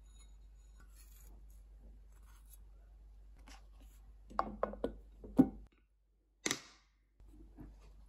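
Plastic lid pressed onto a glass food container and its snap-lock side clips clicked shut: a quick run of sharp clicks and knocks, then one more sharp snap about a second later.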